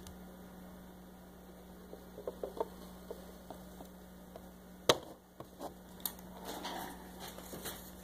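Hot knife with its blade pressed through a plastic roof, a steady low electrical hum under faint crackling and small clicks as the plastic melts around the blade. There is one sharp click about five seconds in.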